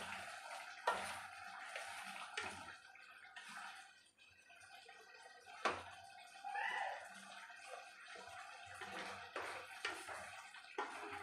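Wooden spatula stirring and scraping potato and cauliflower in an aluminium kadai, with a few sharp knocks against the pan over a low sizzle.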